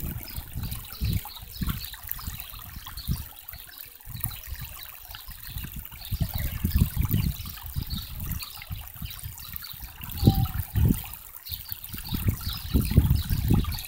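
Shallow rocky stream trickling steadily, under irregular low rumbling on the microphone that swells loudest in the second half.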